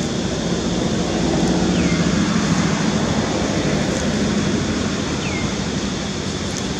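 A motor engine droning past, its hum swelling about a second in and easing off after about four seconds, over steady outdoor noise. A short high chirp, falling in pitch, comes twice.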